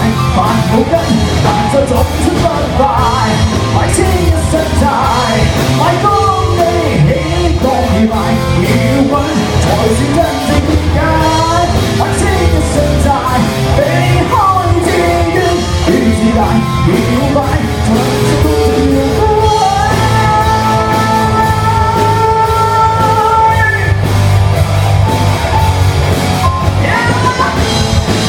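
Live rock band playing: drums, bass and electric guitar with a singer. About 20 seconds in, a long note is held for about four seconds.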